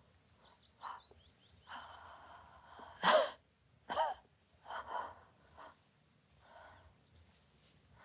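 A woman coughing in a fit: a rasping breath, then a few harsh voiced coughs about a second apart, the first the loudest, trailing off into weaker coughs and breaths.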